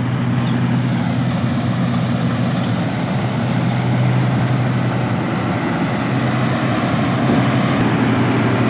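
Combine harvester's diesel engine running steadily under load, a constant loud drone with a low, even engine hum.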